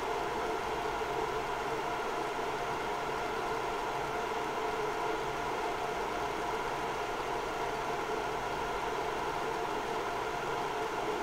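Synology RS422+ 1U rackmount NAS running with two Western Digital Ultrastar HC330 7200 rpm hard drives in active use: a steady whir of its fans and spinning drives, with several steady tones in it.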